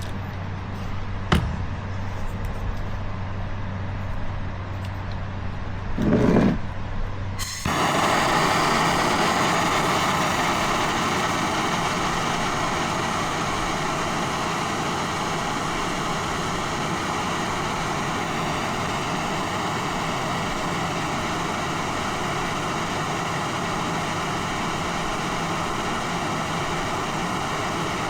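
A gas torch burning with a steady hiss, heating the fluxed part to melt the aluminum brazing rod. It starts abruptly about seven seconds in, after a low hum, a single sharp click and a brief loud burst.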